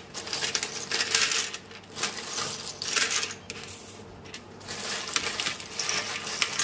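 Dry pasta pieces rattling and clinking onto a steel plate as they are shaken out of a plastic bag and stirred by hand, in three bouts with short pauses between.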